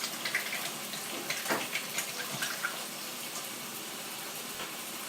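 Kitchen tap running into the sink, with splashing and rubbing as hands are washed under the stream.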